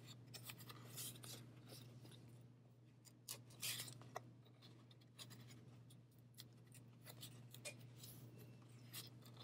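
Faint scratching and light ticks of yarn being wrapped around a cardboard loom and slipped into its notches, over a steady low hum.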